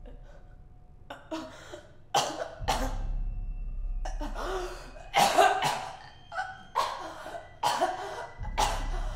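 A woman coughing, choking and gasping: about ten short, rasping bursts at irregular intervals, the loudest a little after five seconds in, over a low hum.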